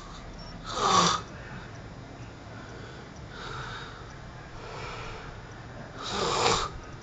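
A sleeping man snoring. There is a loud snore about a second in, fainter breaths in the middle, and another loud snore near the end.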